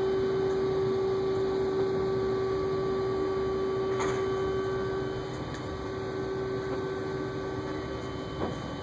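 A steady background hum carrying one strong constant tone, a little softer after about five seconds. A short click comes about four seconds in and a small knock near the end.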